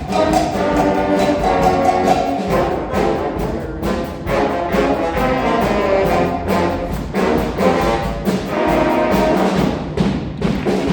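A band's brass section playing held, full chords over timpani and percussion strikes.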